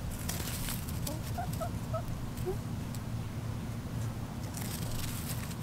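Backyard chickens making a quick run of short, soft clucking calls about a second in. Scratchy rustling of wood-chip mulch comes near the start and again near the end.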